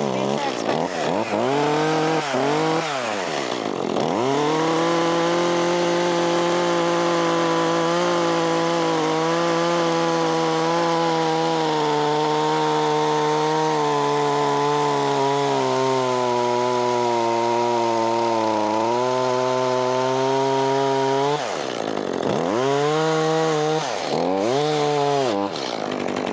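Battery-powered chainsaw cutting through a wooden post or beam at an angle. Its pitch dips and recovers a few times at the start and again near the end; in between it holds one steady pitch through a long cut, sagging slightly for a while under load.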